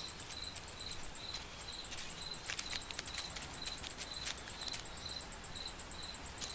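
Insects chirping: a steady pulsed chirp repeating about two to three times a second over a higher continuous trill, with scattered faint ticks.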